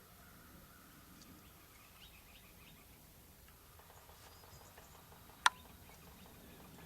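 Quiet outdoor ambience with faint, scattered small bird chirps, and one sharp click about five and a half seconds in.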